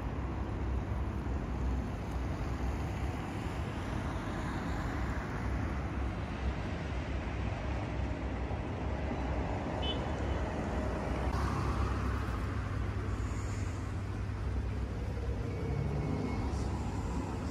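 Street ambience at night: a steady low rumble of road traffic passing nearby.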